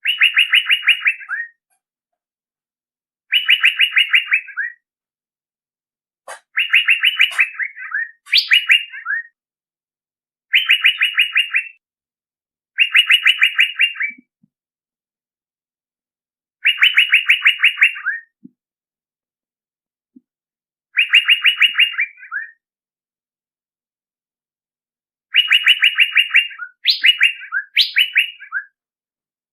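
Male Asian fairy-bluebird (cucak biru) calling: about eight short phrases of rapid repeated notes, each around a second and a half long, separated by pauses of a few seconds. A few phrases end in quick upward-sweeping notes.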